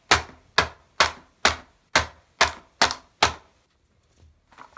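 A wooden toy sword repeatedly striking a Pez dispenser's plastic blister pack lying on carpet. There are eight sharp whacks, about two a second, stopping about three and a half seconds in.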